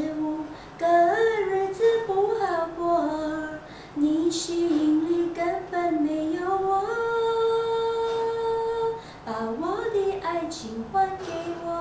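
A woman singing a Mandarin love song unaccompanied, in short sung phrases, with one long steady held note about halfway through.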